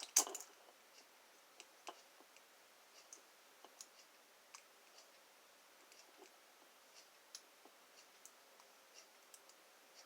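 Faint, irregular small metallic clicks of a lock pick working inside an American Lock 1305 series padlock, with a louder cluster of clicks at the start.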